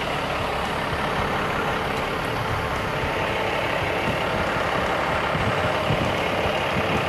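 Peterbilt semi-tractor's diesel engine running steadily as the tractor-trailer backs slowly.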